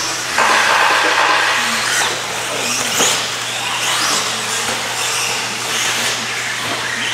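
A pack of electric RC stadium trucks with 13.5-turn brushless motors launching together about half a second in and racing: a dense mix of high motor whines and tyre noise.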